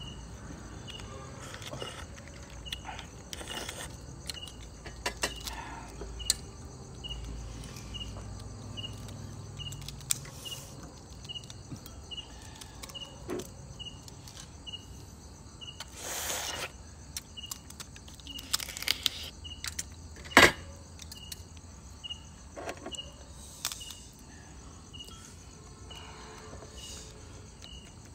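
Crab shells being cracked and picked apart while eating, heard as scattered sharp cracks and clicks, the loudest about twenty seconds in. Behind it an insect chirps steadily about once a second.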